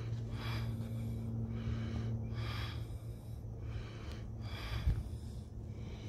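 Breathing close to the microphone, a soft puff of breath about once a second over a steady low hum. A low bump on the microphone about five seconds in.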